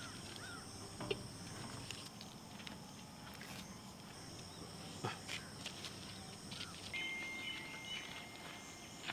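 Faint outdoor ambience: a steady high insect drone, with a few soft knocks and a thin steady whistle-like tone that starts about seven seconds in.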